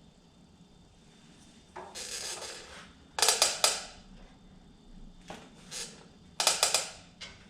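Metal parts clinking and rattling under hand work: a brief scraping rustle, then two short clusters of sharp clicks, the loudest about three seconds in and again about six and a half seconds in, with a few single clicks between.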